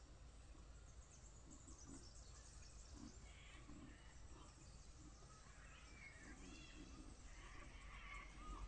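Near silence: faint bush ambience with scattered distant bird calls.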